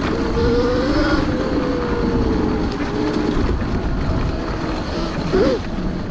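Electric motor of a Kawasaki KX 85 dirt bike converted with a Wired Off-road GK-85 kit whining under throttle, its pitch holding steady and then easing off about halfway through, with a quick rise and fall near the end. Wind and ride noise sit underneath.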